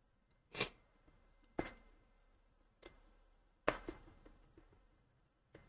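A few faint, separate clicks of computer keys and mouse buttons, roughly one a second, the loudest a little past halfway with a few lighter ticks after it.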